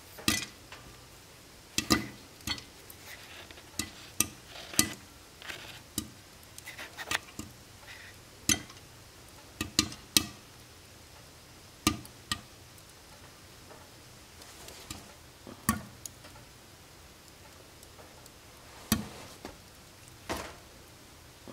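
Popcorn kernels beginning to pop one at a time inside a lidded cast-iron skillet: sharp, irregular pops, roughly one every second or so.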